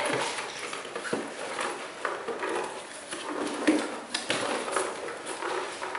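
Cardboard cutout template rustling and knocking as it is handled and pressed against a drywall ceiling: a string of irregular light taps, scrapes and paper rustles.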